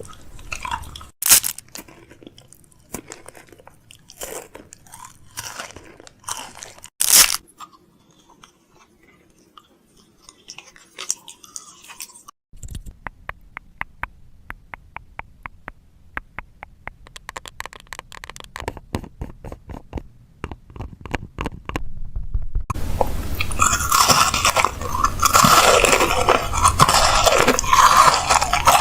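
Food packaging and containers handled close up while a fridge is restocked. Scattered sharp clicks and taps come first, then a run of quick, even clicks. Dense crinkling and crunching fills the last several seconds.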